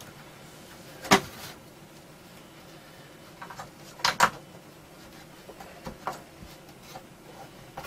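Sharp plastic clicks and light knocks from cable connectors being handled while a floppy drive is hooked up to a computer motherboard: one click about a second in, a close pair around four seconds in, and a few fainter ticks later.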